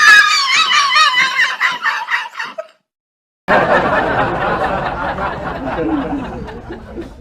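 Two laughter sound effects, one after the other with a short silent gap between them. The first is high-pitched and warbling and stops about two and a half seconds in. The second is lower and noisier, starts about a second later and fades away near the end.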